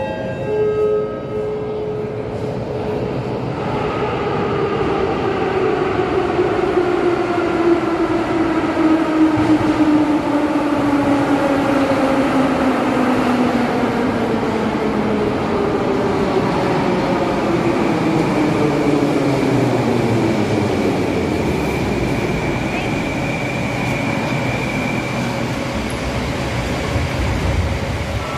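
Soviet-era E-series metro train arriving and braking: its traction motor whine falls slowly and steadily in pitch as it slows to a stop. A high steady squeal holds for several seconds in the second half of the braking.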